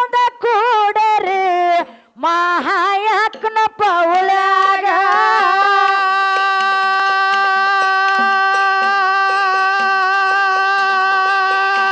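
A woman singing a folk song through a microphone: a few short, ornamented phrases, then one long note held steady for about eight seconds, over light, even ticks of small hand cymbals keeping time.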